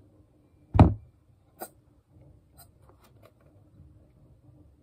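A plastic lotion bottle and mixing bowl being handled on a tabletop: one sharp knock about a second in, then a fainter click and a few light taps.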